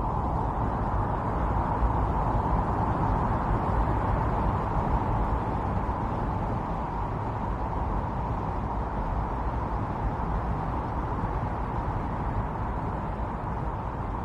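Strong winter storm wind blowing steadily, with a low rumble beneath and a rushing band in the middle, swelling slightly a couple of seconds in and easing a little near the end.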